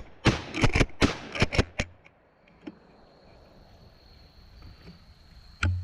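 Rapid gunfire, about six shots in the first two seconds. Then a steady high insect drone, and near the end one more sharp bang with a low thump.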